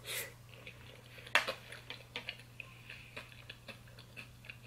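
Close-miked chewing of a mouthful of creamy macaroni and cheese: soft wet mouth clicks and smacks, with one sharper click a little over a second in.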